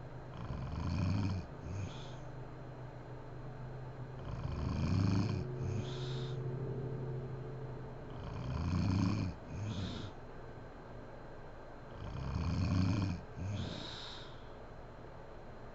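A sleeping woman snoring loudly and rhythmically: four snores about four seconds apart. Each is a rumbling snore followed by a short second burst.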